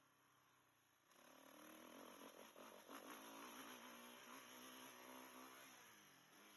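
An engine running, its pitch rising and wavering from about a second in and dropping away near the end, under a steady high-pitched hiss.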